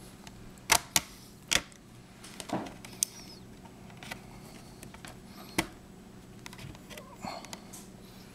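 Scattered sharp clicks and taps of a small screwdriver and hardware being handled while a laptop LCD panel is screwed back into its lid. The loudest come about a second in, with more near three and five and a half seconds.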